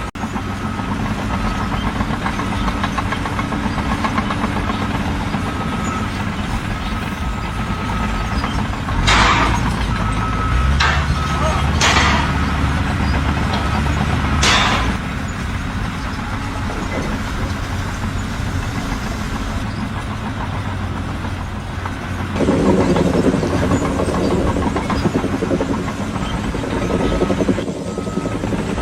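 Heavy engine running steadily, with four short bursts of noise between about nine and fifteen seconds in, and voices near the end.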